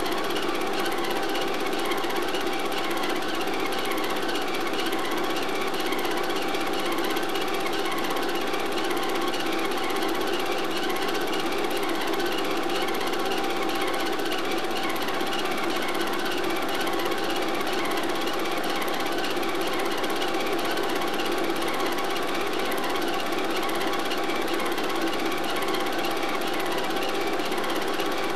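Home-movie film projector running with a steady mechanical clatter, unchanged across the picture cuts.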